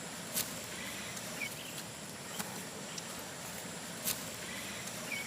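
Quiet outdoor ambience: a steady hiss with a few faint clicks and a couple of faint chirps.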